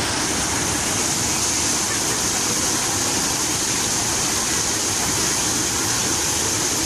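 Fountain water splashing and falling in a steady, unbroken rush.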